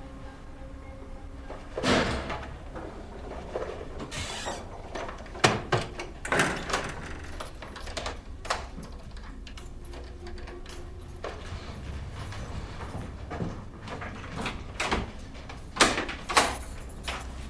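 Objects being handled in a wooden cabinet: irregular knocks, clicks and scrapes as things are lifted out, set down and the cabinet doors are moved.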